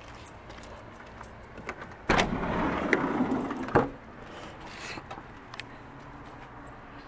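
Sliding side door of a 1992 Mitsubishi Delica L300 van pulled open: it starts suddenly about two seconds in, rolls along its track for under two seconds, and ends in a sharp clack.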